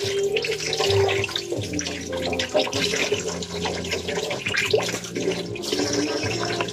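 Tap water running into a sink while hands splash water onto a face, washing it.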